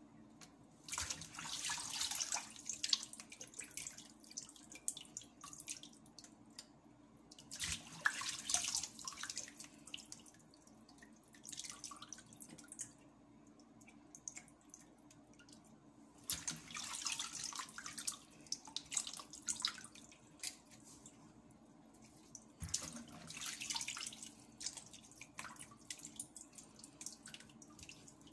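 Kitchen tap water running in short spells of a few seconds, splashing over a fish as it is gutted and rinsed in the sink, with a faint steady low hum underneath.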